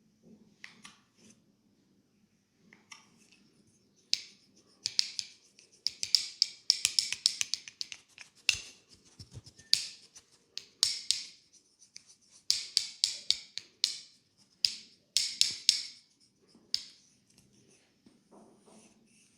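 Hands working through hair in a head massage: crisp rustling and scratching in quick bursts of about a second each, starting about four seconds in and stopping a couple of seconds before the end.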